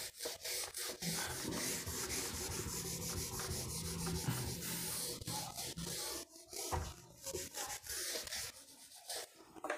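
Close rubbing and scraping noise, steady for about six seconds and then breaking into shorter, separate scrapes.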